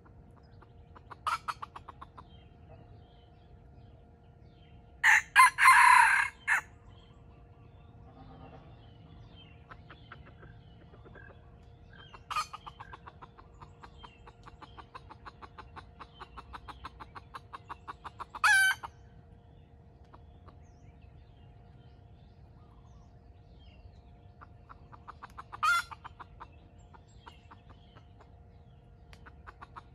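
Junglefowl roosters crowing: a loud crow about five seconds in, then shorter crows later on, with runs of quick, evenly spaced clucks between them.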